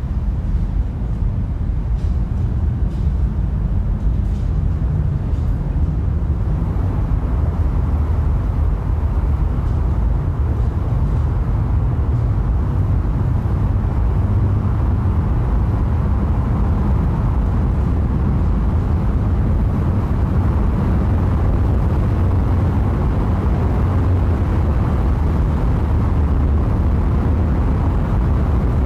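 Loud, steady low rumble that fills out slightly after about six seconds, with a few faint clicks in the first few seconds.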